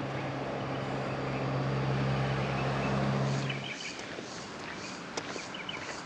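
A motor vehicle's engine running with a steady hum, growing a little louder, then stopping abruptly a little past halfway. Birds chirp after it.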